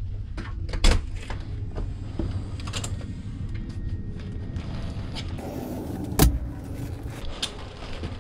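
A cabin door being unlatched by its lever handle and pushed open, with sharp handle clicks and knocks and a single loud knock about six seconds in, over a steady low hum.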